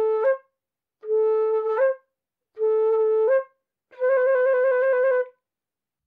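A flute-like wind instrument plays four notes. Three similar held notes each step up a little at their end, and a fourth, longer note near the end has a quick trill.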